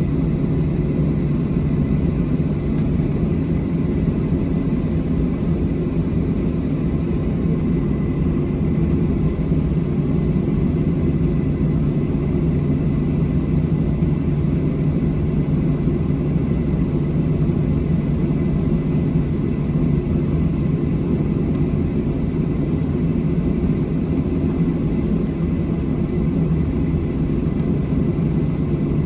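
Steady cabin noise inside a Boeing 737-700: a low, even drone from the CFM56-7B engines and airflow, with a faint high steady tone above it. It does not change.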